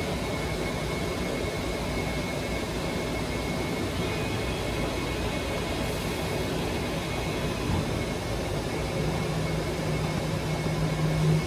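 Full-automatic cotton candy vending machine running: a steady whooshing machine noise from its spinning floss head and fans. A low steady hum joins about nine seconds in.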